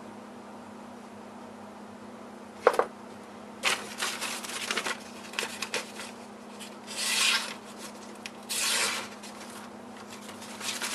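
A hand-forged knife slicing through a sheet of paper in two longer hissing cuts, with paper rustling and shorter cuts before them, in a sharpness test. There is one sharp knock about three seconds in, and a faint steady low hum underneath.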